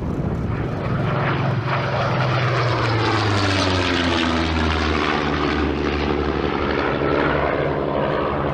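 Propeller-driven aircraft flying low past, its engine note dropping steadily in pitch as it goes by, then holding steadier as it moves away.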